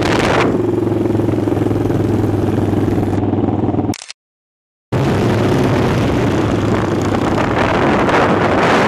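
Single-cylinder Yamaha SR motorcycle engine running steadily at cruising speed, heard from on the bike. The sound cuts out to silence for about a second just after the middle, then returns unchanged.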